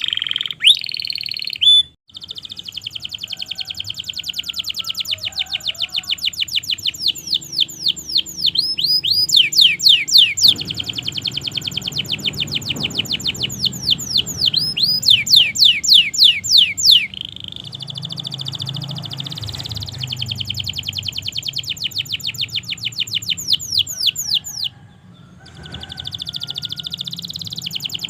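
Domestic canary singing a long song made of rapid trills and fast runs of repeated down-sweeping notes, pausing briefly twice.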